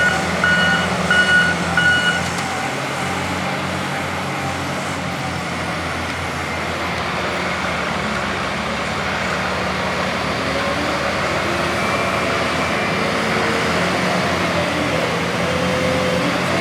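Diesel engines of heavy earthmoving machines running with a steady drone that grows a little louder toward the end. A backup alarm beeps about twice a second at the start and stops about two seconds in.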